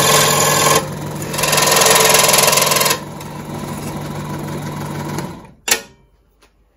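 Bench scroll saw cutting through 2 mm aluminium sheet. About three seconds in the cut ends and the saw runs on unloaded and quieter, then runs down just after five seconds, with a single sharp click near the end.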